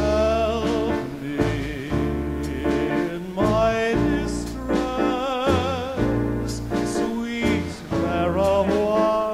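Live dance orchestra playing a 1930s-style Latin tune: a melody with strong vibrato over steady, sustained bass notes.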